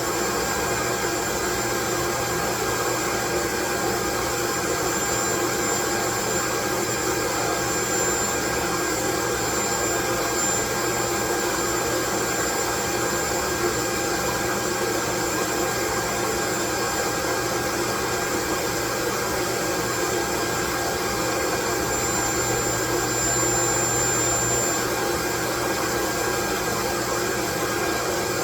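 Steady, loud white noise: an even hiss with a few faint steady tones in it, unchanging.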